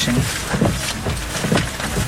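Inside a car driving in rain: steady road and rain noise with a regular swish about twice a second.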